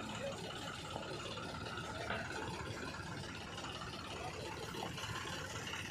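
Diesel engine of the loading machinery running steadily, an even engine noise with no sharp events.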